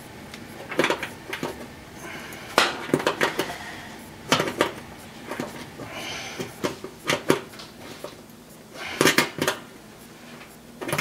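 A screwdriver turning a screw into the sheet-metal back wall of an oven, tightening a heating element's mounting tab: irregular metallic clicks and scrapes in short clusters every second or two.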